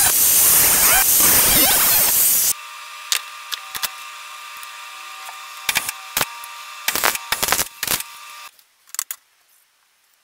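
Hitachi angle grinder cutting into a steel tube, a loud steady grinding that stops abruptly about two and a half seconds in. Then a steady electric welder hum with a run of short, sharp crackles as the tube is tack-welded, ending about a second and a half before the end.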